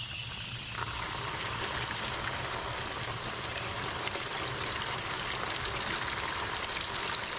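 Water rushing out of the open body of a water pressure-reducing valve, its spring and internals removed, spraying against a plastic sheet as the water is turned on to flush gunk out of the valve. The rush is steady and grows louder about a second in.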